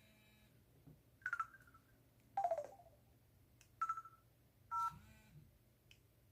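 Samsung Anycall SPH-C2205 slide phone playing short electronic sound effects from its speaker: four brief beeps, the second a falling glide, with faint clicks between them.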